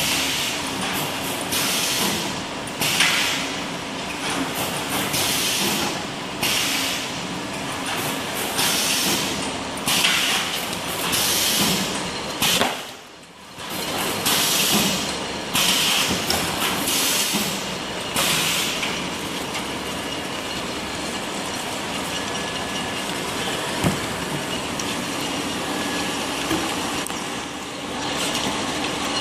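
Automatic heat shrink wrapping line for jumbo toilet tissue rolls (L-sealer feeding a heat shrink tunnel) running, with a hissing burst about every second or so through the sealer's working cycle. Later it settles into an even, steady running noise with a single click.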